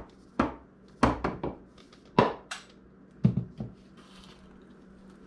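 Kitchen bowls and utensils knocking together as dry ingredients are tipped from one mixing bowl into another and a spatula goes in: a run of sharp knocks in the first three and a half seconds, then quiet.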